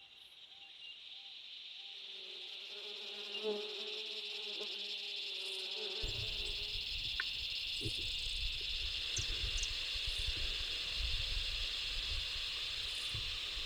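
Steady high-pitched chorus of insects buzzing, fading in at the start. A low rumble joins abruptly about six seconds in.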